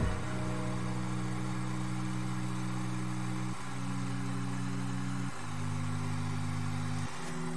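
Background music: sustained low notes that change pitch three times, over a faint steady hiss.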